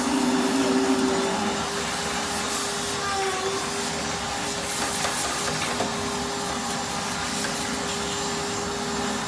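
Vacuum cleaner running steadily, sucking dust out of a refrigerator's clogged condenser coil.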